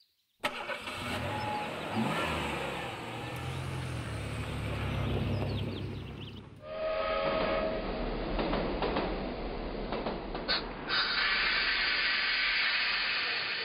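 A low rumble, then a short horn blast about halfway in, followed by an Indian Railways passenger train running on the rails: wheels and bogies rumbling under a loud rushing hiss that swells near the end.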